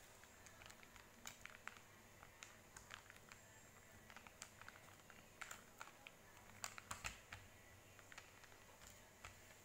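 Faint, irregular clicks and crackles of something being handled by hand, with a short cluster of louder clicks about seven seconds in.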